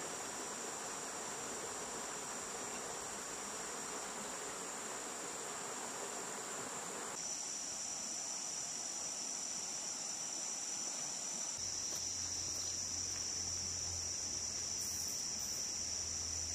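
Steady, high-pitched chorus of forest insects, running without a break. Underneath, a softer hiss stops abruptly about seven seconds in, and a low rumble comes in later.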